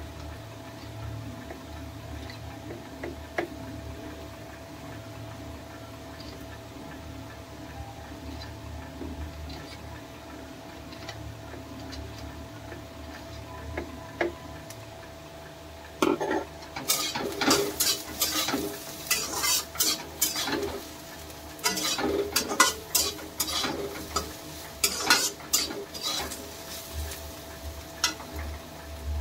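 Metal utensil stirring and scraping in a cooking pan: a low steady hum with a few light clicks, then about halfway through a run of clattering scrapes and knocks that lasts most of the rest.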